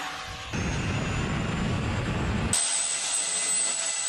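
Electric ducted fan of an RC jet car running: a loud rushing of air, then after a cut about two and a half seconds in, a steady high whine over hiss.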